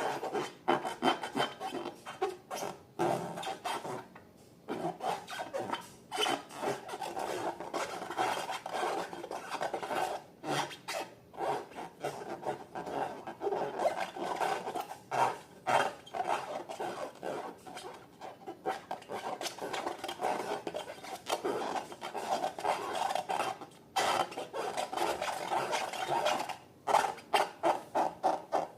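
Slime being mixed and worked: a continuous run of quick sticky crackles and rubbing, with short pauses.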